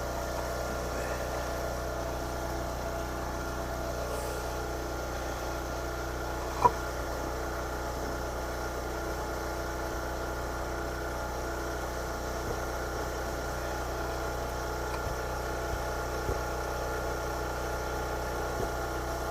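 Generator engine running steadily, a constant hum with several steady tones. A single short click about seven seconds in.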